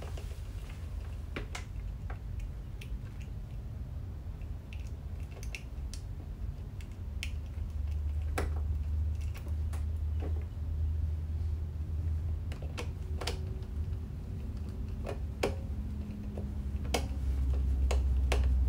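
Sparse, irregular small clicks and taps of a screwdriver and stiff wire ends working a thermostat's screw terminal block as cables are fastened in, over a low steady rumble.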